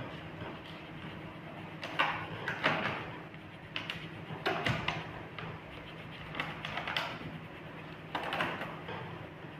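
Wax crayon scribbling on paper in several clusters of quick scratchy strokes, over a low steady hum.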